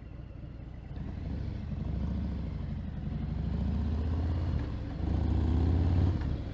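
Motorcycle engine under way, picked up by a helmet-mounted camera microphone. The revs climb from about a second in, dip briefly and climb again, and it is loudest near the end.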